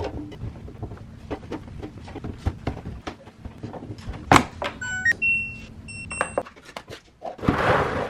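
Household clatter: a run of short knocks and clicks over a steady appliance hum, with a few electronic beeps about five to six seconds in. The hum stops soon after the beeps, and a short rush of noise comes near the end.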